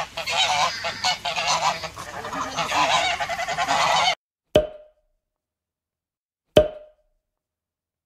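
A flock of domestic geese honking together, many calls overlapping. The sound cuts off suddenly about four seconds in, followed by two sharp knocks about two seconds apart.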